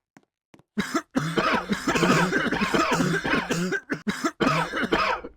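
Loud coughing, many coughs crowded and overlapping, breaking off briefly a couple of times and cutting off abruptly near the end. It starts about a second in, after a few faint ticks.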